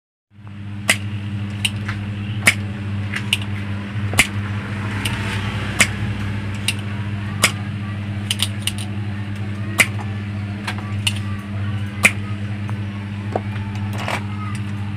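A steady low hum with irregular sharp clicks and ticks over it, starting suddenly a moment in.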